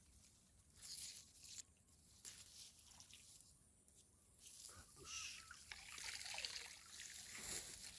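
Water sloshing and trickling in irregular bursts, once about a second in and again more strongly through the second half.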